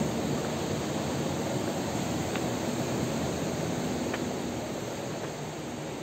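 Steady rushing of water, easing off slightly in the last couple of seconds.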